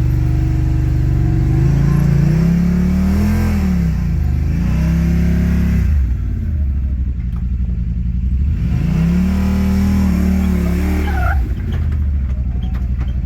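Side-by-side UTV engine revving up and easing off in repeated swells, with a quieter lull about halfway through.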